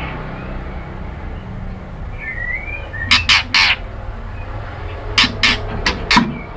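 Female white-rumped shama giving short, harsh rasping calls: a group of three about halfway through and a group of four near the end, after a faint whistled chirp. These are calls of a female calling to a male.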